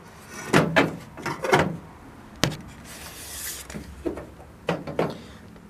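Metal windshield frame of a 1931 Studebaker being handled and offered up to the body: about eight separate knocks and clunks, with a short scrape about three seconds in. The frame has been bent out of shape and will not go into place.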